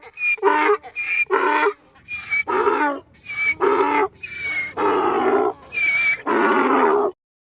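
An animal calling over and over in a two-part rhythm. Short high calls alternate with longer, lower ones, and the calls get longer until they stop abruptly near the end.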